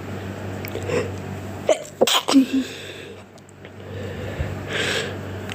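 A person sneezing while ill: a breath drawn in about a second in, then one sharp, loud sneeze about two seconds in, and another breath in near the end.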